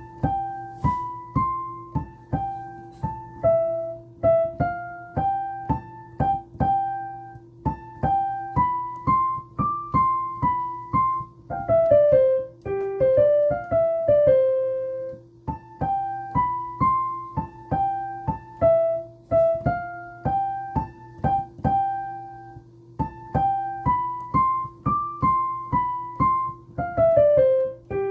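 Piano playing a melody with the right hand alone, one struck note at a time in short repeating phrases, over a steady low hum.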